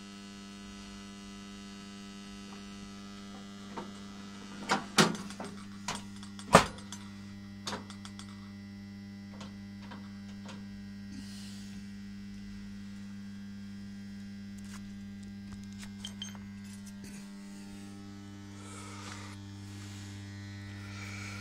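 Steady mains-frequency hum from a running Peerless Magnarc carbon arc lamp, its arc lit. Several sharp knocks and clicks come about five to eight seconds in as the lamphouse is handled.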